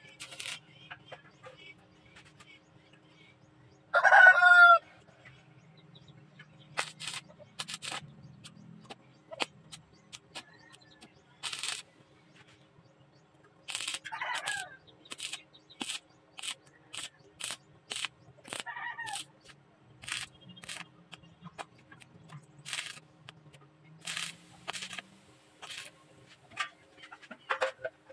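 A rooster crows loudly once about four seconds in, and fainter crows follow later. Through the rest, short crackling bursts of a stick-welding arc, one after another, each under a second long, as steel square tubing is tack-welded.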